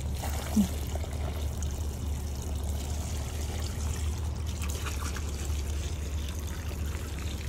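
Water running from a garden hose and trickling into a small bowl, a steady pour.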